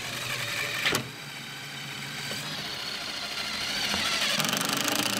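Cordless impact driver running as it drives a screw down through the plywood deck sheet, a steady motor whir that grows louder toward the end as the screw bites. A single sharp click sounds about a second in.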